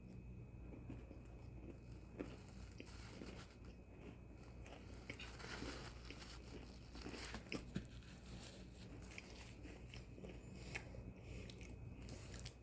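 Quiet chewing and crunching of a dark and white chocolate Oreo cookie: scattered small crunches over a steady low hum.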